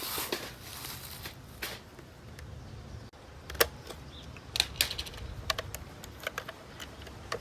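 Irregular sharp clicks and light knocks of gear being handled, the loudest about three and a half seconds in, with a quick cluster of clicks after it.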